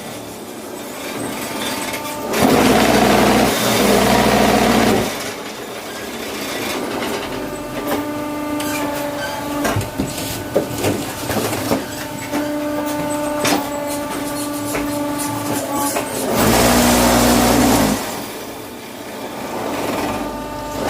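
Concrete-block (batako) machine's electric vibrator motor switching on in loud bursts of vibrating hum, about two and a half seconds in and again near the end. Between the bursts there are quieter steady tones and metal clanks and rattles.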